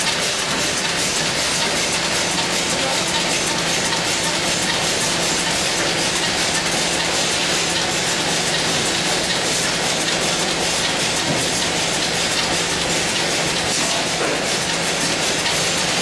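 Automatic cartoning machine with a bottle turntable running steadily: a dense, even clatter of rapid clicks over a faint low hum.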